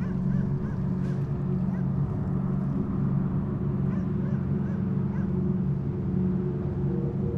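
A steady low droning hum with short, arching chirps repeating over it, in loose clusters.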